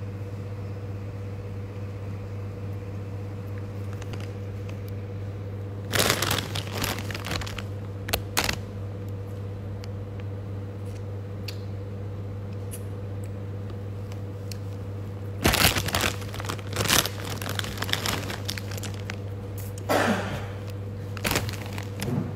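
Plastic snack bag crinkling in three spells of sharp rustles, with some crunching as the snack is eaten, over a steady low electrical hum.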